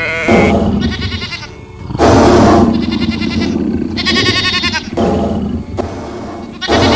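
Sheep bleating again and again in quavering calls, with louder rough, noisy bursts between them: one near the start, a longer one about two seconds in, and another near the end.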